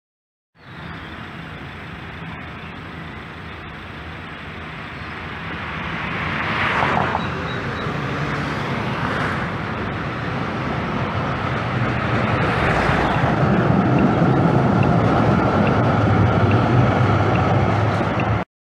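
Street traffic swelling as a vehicle passes about seven seconds in, then a DVG tram approaching and rolling past close by, with a low rumble of its wheels on the rails growing louder from about twelve seconds in.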